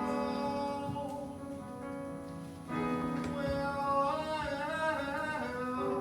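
Live music: a singer holding drawn-out notes with vibrato over sustained accompaniment chords, the chords changing twice.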